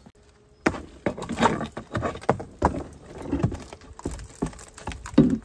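A flat pry bar levering old wooden shed siding loose, with irregular knocks, creaks and scrapes of metal on wood starting about a second in.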